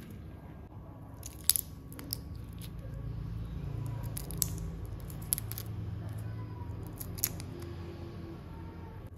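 Raw shrimp being peeled by hand: several sharp cracks and crackles as the thin shells are broken and pulled away, the loudest about a second and a half in, over a steady low hum.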